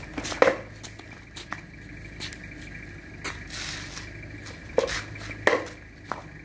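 Barongan mask's wooden jaw clacking shut several times at irregular intervals during the dance, the loudest clacks about half a second in and twice near the end.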